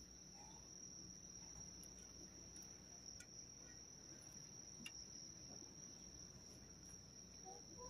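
Crickets trilling steadily, a faint, continuous high-pitched tone over low background hum, with a couple of faint ticks.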